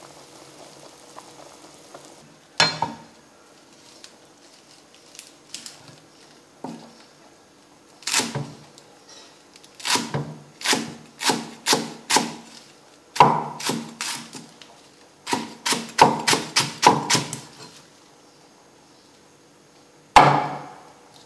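Cleaver chopping fresh leaves on a wooden chopping board: sharp knocks of the blade on the wood, a few single strikes and then quick runs of about two to three strikes a second, with short pauses between runs.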